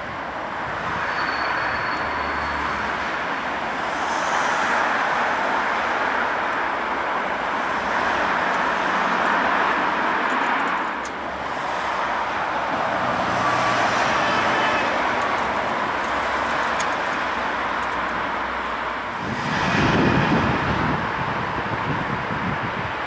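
Boeing 777-300ER's GE90 turbofans at taxi power as the airliner turns onto the runway: a steady distant jet rush. A louder low rumble swells briefly about twenty seconds in.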